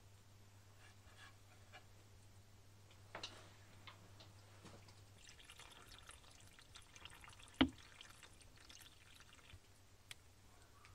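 Water pouring from a plastic bottle into a cast-iron pan of rice-and-cabbage mixture, starting about five seconds in and lasting about four seconds, with one sharp knock partway through. A softer knock comes about three seconds in.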